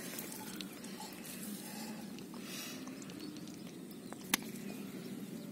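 Steady, faint outdoor background noise, with a single sharp click a little over four seconds in.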